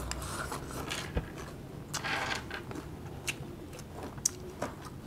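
Eating and table-handling sounds: scattered light clicks and taps of utensils and dishes, with a brief rustle about two seconds in.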